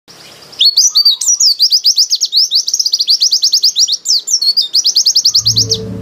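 Caged white-eye (pleci) singing a long, fast run of high, down-slurred chirps, about eight a second, starting about half a second in, with a brief break around four seconds. Soft music comes in underneath near the end.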